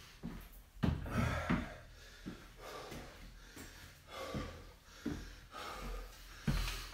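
A man breathing hard, with puffing breaths, recovering from exertion after a tough set of squat walks. Between the breaths come a few thuds of his feet on the rubber gym floor as he shakes out his legs.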